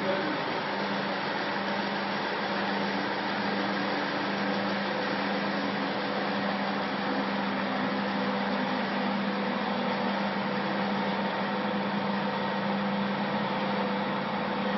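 Hydraulic power unit of an NK30LT vertical clothes baling press running, a steady hum with a constant low tone, as the ram drives the press plate down to compress a load of used clothes.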